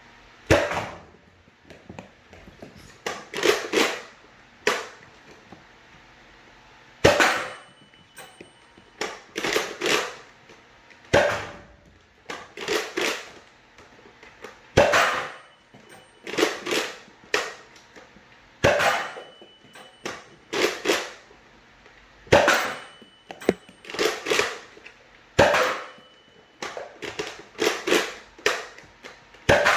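Nerf Rival blaster firing foam balls again and again at a target, a sharp clack of shot and hit every one to two seconds; several of them are followed by a short high electronic tone from the target, which signals a hit.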